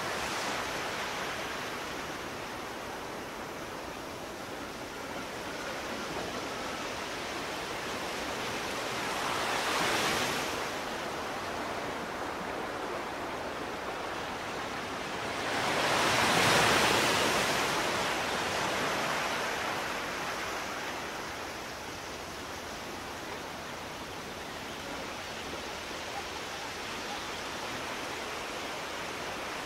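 Steady rushing water noise, swelling twice: briefly about ten seconds in, and louder around sixteen seconds before fading back.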